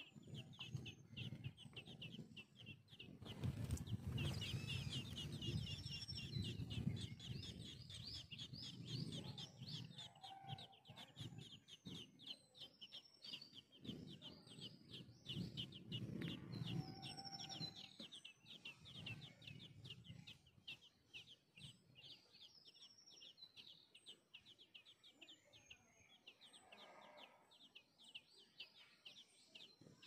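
Nestling songbirds begging at the nest: a rapid, unbroken run of high, thin chirps, with a few clear higher whistled notes over it. A low rustling noise sits underneath for about the first half, then fades.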